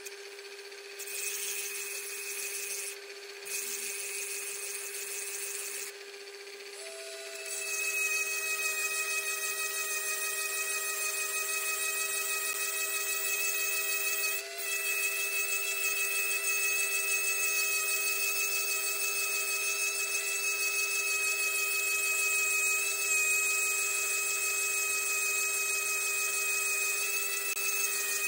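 A handheld rotary tool grinding into a glass test tube turning in a lathe, with the machines' steady whine underneath. The high grinding hiss comes in short spells at first, then from about seven seconds a second motor whine joins and the grinding runs on steadily and louder.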